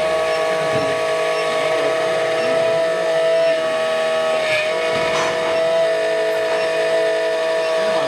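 SEC-E9 automatic key cutting machine's belt-driven spindle motor running with a steady high whine as its cutter mills an HON66 car key blank, the pitch dipping briefly about halfway through.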